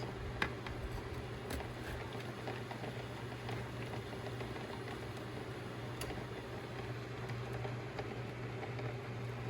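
Steady low hum with an even background hiss, and a few faint clicks or taps scattered through it.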